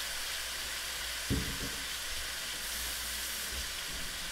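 Oxtail pieces searing in a square copper-coloured frying pan on a gas burner: a steady sizzle, with a brief low knock about a second in.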